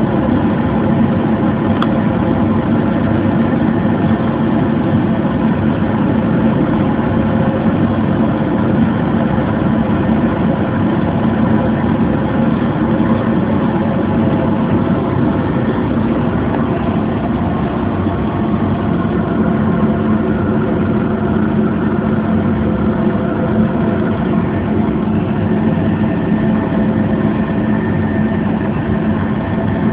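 Light diesel oil burner on a dryer furnace firing steadily: its blower motor and fan give a loud, even hum at a constant pitch, with no change in load.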